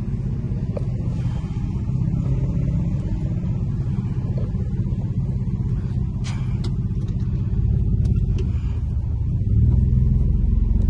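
Infiniti G37 sedan's V6 engine and exhaust running as the car drives off at low speed, heard from inside the cabin; it gets a little louder near the end.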